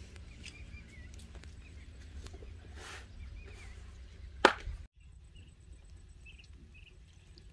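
Outdoor ambience by the water: a low steady rumble with faint bird chirps, and one sharp knock about four and a half seconds in. The sound drops out for a moment just after the knock and returns quieter, with a few more chirps.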